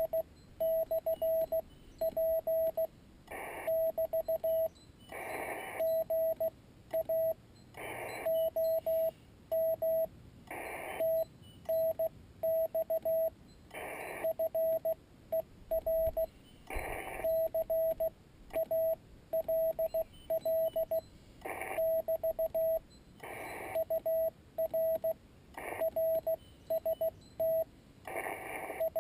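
Morse code (CW) from a Yaesu FT-817ND HF transceiver: a steady mid-pitched tone keyed on and off in quick dots and dashes. Every couple of seconds, in the pauses between groups, there is a short burst of hiss.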